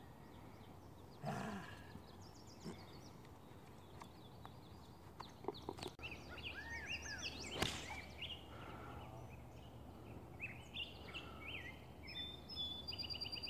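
Birds chirping and singing throughout, with a single sharp crack about seven and a half seconds in: a 6-iron striking a golf ball off the tee.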